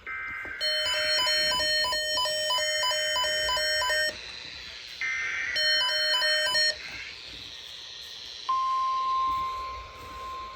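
NOAA Weather Radio SAME test alert: short warbling digital header bursts at the start and again about five seconds in, with a weather radio receiver's alarm beeping in a fast repeating pattern over them. About eight and a half seconds in, the steady 1050 Hz NOAA warning alarm tone starts.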